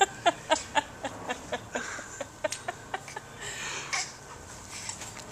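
A person's laughter: a run of short bursts, about four a second, that fade away over the first three seconds, followed by a soft breath.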